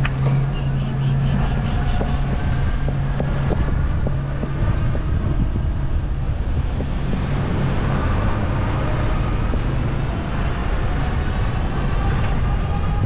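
Steady city street traffic noise with wind on the microphone while riding a bicycle. A low steady hum fades out about halfway through, and a faint rising whine comes in near the end.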